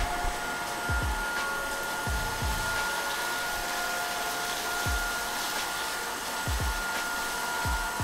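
Redroad V17 cordless stick vacuum running steadily on its lowest (eco) suction setting: a steady motor whine with a higher overtone over an airy rush, as the motorised floor brush sweeps grains off a laminate floor. A few short low thumps come at uneven intervals as the head is pushed about.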